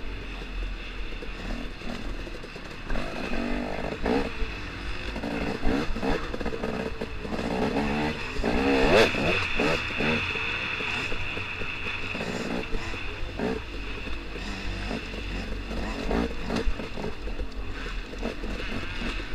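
KTM 250 XC-W two-stroke dirt bike engine running at low speed, with the throttle opened and let off in a brief rise and fall about halfway through.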